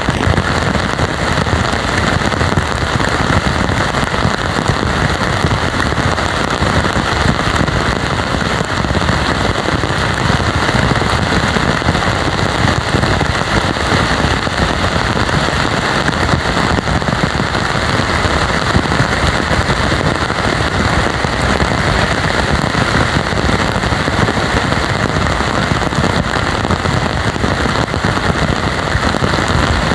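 Heavy tropical rain pouring steadily, an even, dense hiss of downpour that does not let up.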